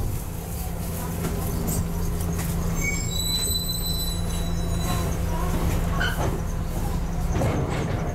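Double-decker bus engine running steadily, heard from the upper deck, with the brakes giving a high squeal for about a second around three seconds in as the bus comes to a halt at a stop.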